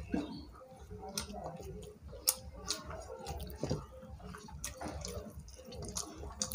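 Two people eating rice and curry with their hands: irregular soft wet clicks and smacks as fingers mix and gather the rice on the plates, with chewing.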